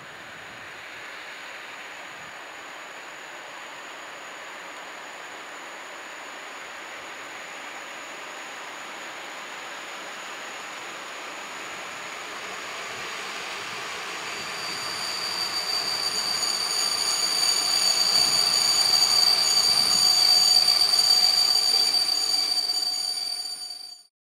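Polish EP07 electric locomotive hauling a passenger train as it approaches, its rumble growing steadily louder. About two-thirds of the way through, a high-pitched brake squeal with several steady tones sets in as the train slows for the station. The sound cuts off abruptly just before the end.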